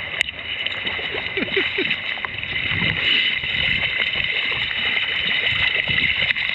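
Steady rushing hiss of a salmon stream's running water, with faint small splashes over it.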